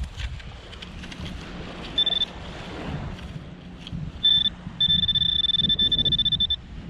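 Garrett Pro-Pointer pinpointer beeping as it picks up a metal target in the sand: a short high beep about two seconds in, another a little after four seconds, then an almost steady tone for nearly two seconds as it closes on the target.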